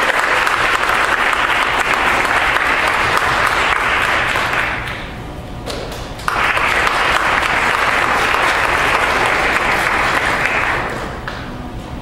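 Audience applauding in a hall. The clapping dies down about four and a half seconds in, a second round starts suddenly about a second and a half later, and it fades away near the end.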